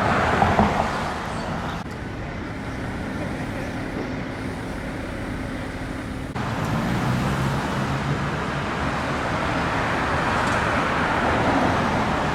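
Road traffic: vehicles passing on a nearby street, a steady rushing noise with some engine hum, changing abruptly twice.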